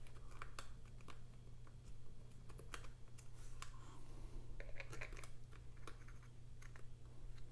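Faint, irregular small clicks and taps from hands and small tools fitting the battery connector inside an opened mid-2011 MacBook Air, over a low steady hum.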